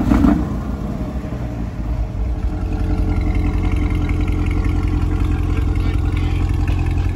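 C8 Corvette's mid-mounted V8 idling steadily through its exhaust, a low even engine note that grows slowly a little louder.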